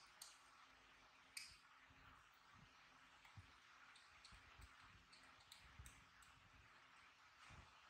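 Near silence with faint, scattered small clicks: a baby macaque handling and eating soft fruit slices.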